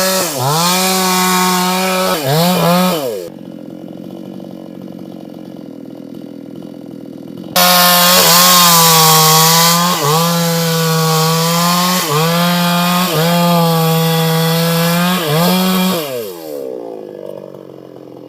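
Two-stroke chainsaw cutting through a large sengon tree trunk at full throttle, its pitch sagging briefly each time the chain bogs under load. About three seconds in it drops to idle for some four seconds, then revs back up and keeps cutting, and near the end it winds down.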